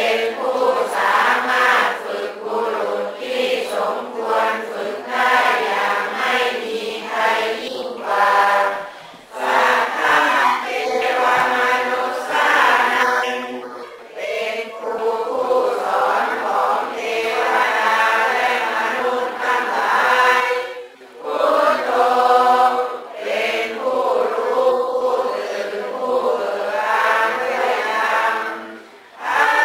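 Several voices chanting together in a steady melodic recitation, typical of Buddhist chanting, in long phrases broken by a few brief pauses.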